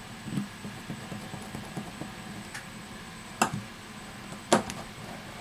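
Small plastic ticks and taps from a Samsung Galaxy S8's inner plastic frame being pressed into place and worked with a precision screwdriver, with two sharp clicks about a second apart past the middle.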